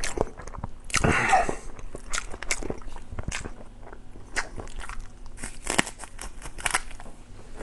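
Close-miked eating sounds: a person biting and chewing food, with many short sharp clicks and crunches throughout and a louder, denser stretch about a second in.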